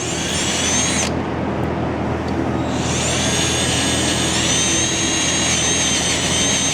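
Electric drill drilling out a bolt hole that is too small: a high whine that spins up and stops after about a second, then starts again near three seconds in and keeps running steadily.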